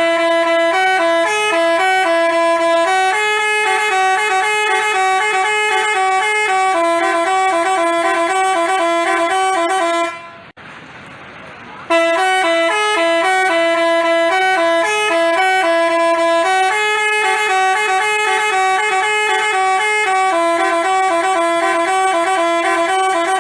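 Basuri telolet bus horn playing a tune of stepping notes. It breaks off about ten seconds in, with only a short noisy hiss, and then plays the same tune again.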